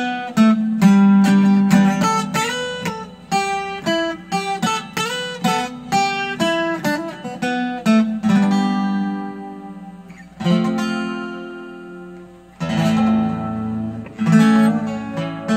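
Acoustic guitar played solo: a run of quick picked single notes and chord fragments, then four chords struck about two seconds apart and left to ring out.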